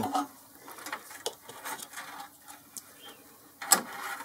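Scattered small clicks, taps and rustles of hands handling things at the lathe, with a sharp click at the start and a louder knock about three and a half seconds in.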